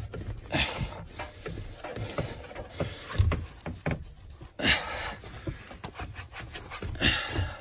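Wet rag wiping and scrubbing inside an air handler's sheet-metal cabinet and foil-faced insulation: irregular rubbing and scuffing with scattered knocks, the heaviest a dull thump about three seconds in.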